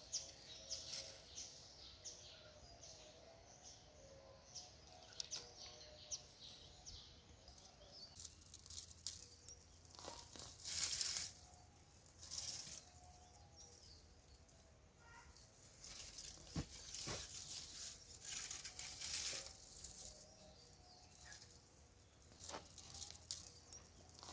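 Digging by hand in the loose soil of a potato raised bed: irregular bursts of scraping and rustling earth and plant stalks, with a few sharp clicks.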